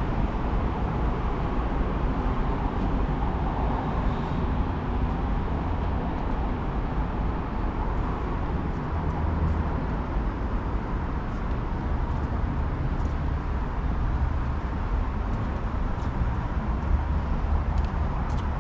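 Steady outdoor background noise with a constant low rumble and no distinct events.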